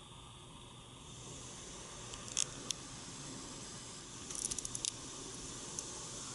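Water jets of an automatic touchless car wash spraying the car, heard from inside the cabin: a steady hiss that grows louder about a second in, with sharp spatters of water hitting the glass twice, the second a quick cluster.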